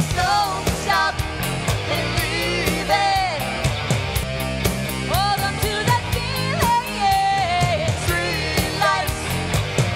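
An 80s cover band playing an upbeat rock song: a woman singing lead over a steady drum beat and guitar.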